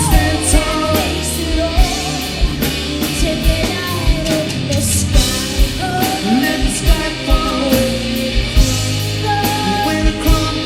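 Live rock band playing: a lead vocal sung over a steady drum beat, bass and keys.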